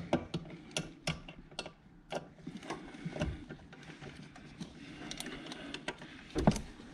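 Light, irregular metallic clicks and ticks as a wrench is worked on a tight fastener at the brake master cylinder, with a louder dull knock about six and a half seconds in.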